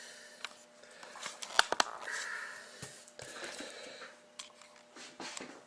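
A few scattered light clicks and soft rustling, over a faint steady electrical hum.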